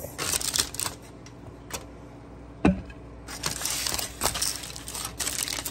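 Aluminium foil crinkling as it is handled and pulled open by hand, in two spells, with a single sharp knock on the counter about two and a half seconds in.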